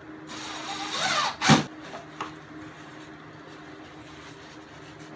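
Cordless drill running for about a second, driving a pocket-hole screw into a wooden frame runner, then a single sharp knock, the loudest sound, and a smaller click.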